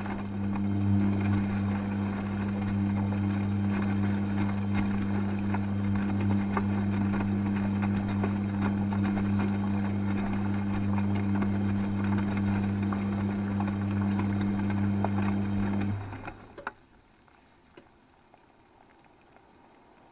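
Beko washing machine tumbling a full, wet load during heating on a 90 °C wash, heard from inside the detergent drawer: a steady low motor hum over the slosh of laundry and water. About three-quarters through the drum stops and the hum cuts off, leaving near quiet with a couple of faint clicks.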